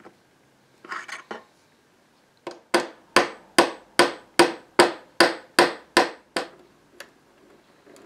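Small hammer tapping on a brass hinge fitted to a wooden box: a few light taps about a second in, then a steady run of about ten sharp taps, a little over two a second, followed by a couple of faint clicks.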